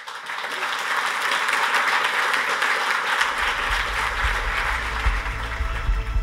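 Audience applauding at the close of a talk, a steady dense clapping that starts all at once.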